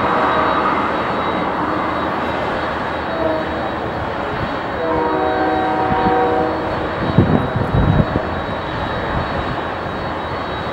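Boeing 767-300's jet engines during engine start: a steady rushing hum with faint whining tones. Gusts of wind buffet the microphone with low thumps about seven to eight seconds in.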